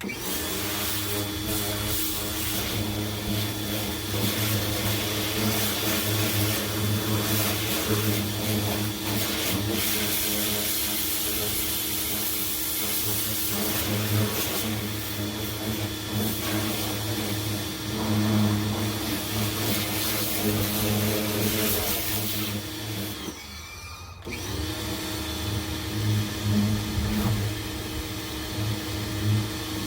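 GreenWorks 1700 psi electric pressure washer running, its motor and pump humming steadily under a hiss of spraying water. A little over twenty seconds in, it cuts out for about a second and then starts up again.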